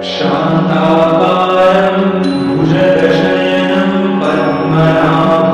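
Devotional background music: a mantra chanted in phrases over a steady drone.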